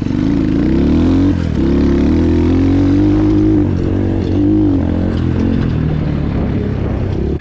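Apollo RFZ 250cc dirt bike engine revving under throttle while ridden, its pitch rising and falling; it drops off sharply about a second and a half in, then climbs again.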